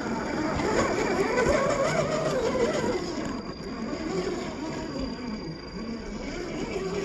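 1/10-scale RC crawler's electric motor and gear drivetrain whining, its pitch rising and falling with the throttle, lowered and drawn out by half-speed slow motion. The pitch swings highest and loudest about one to three seconds in.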